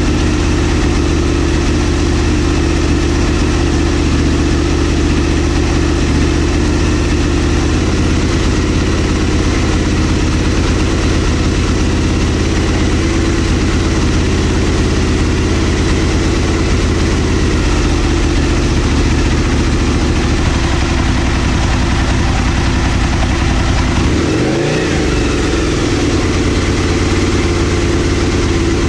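Aprilia RSV Mille's Rotax V-twin engine idling steadily, its speed briefly dipping and coming back up about five seconds before the end.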